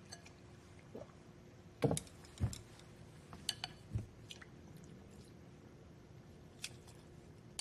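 Quiet eating sounds: a couple of soft gulps from a ceramic soup bowl about two seconds in, then a few light clinks of chopsticks against the bowl as rice noodles are picked up.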